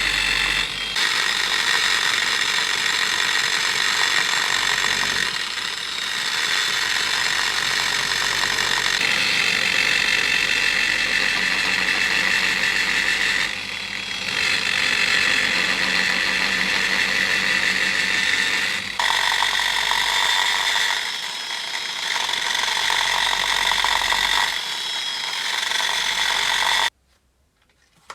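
A handheld power tool runs steadily with a high whine as it works metal, its sound shifting every few seconds as the load changes. It stops abruptly near the end.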